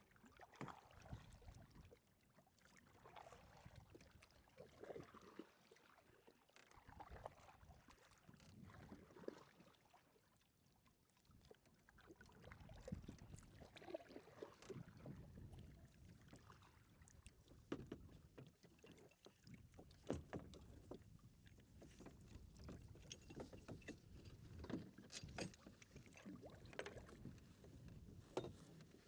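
Faint sounds of a kayak on the water: low sloshing with scattered light knocks and clicks from the paddle and hull, quietest about a third of the way through.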